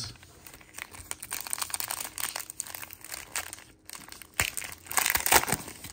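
Wrapper of a 2022 Donruss Football trading-card pack crinkling as gloved hands handle it and tear it open, a dense crackle that grows louder over the last second and a half.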